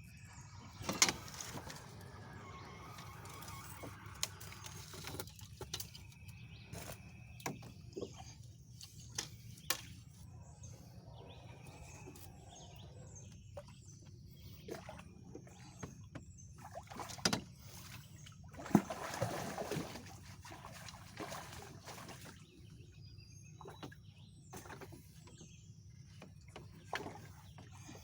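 Knocks and splashing around a small boat on a river, with a steady low hum underneath and faint birdsong. Sharp knocks stand out about a second in and again around 17 and 19 seconds, the last followed by a couple of seconds of splashing.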